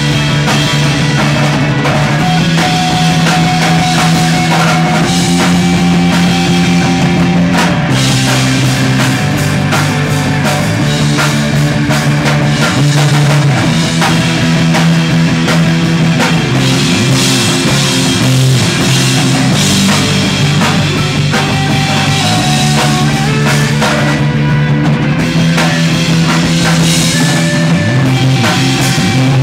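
A rock band playing, with drum kit and bass, at a steady loud level.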